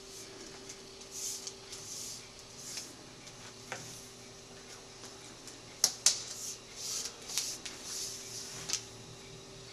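A hand gripping a plastic soda bottle capped with a rubber balloon while Alka-Seltzer reacts in the Diet Coke inside: soft intermittent rubbing and rustling. Two sharp clicks come about six seconds in and another near the end, over a faint steady hum.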